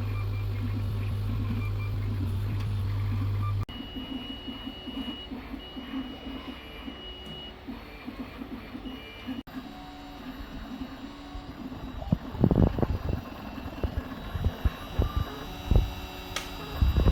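3D printer heard in separate shots: first a steady low hum, then a high steady whine from the stepper motors that starts and stops several times, then irregular knocks and clicks.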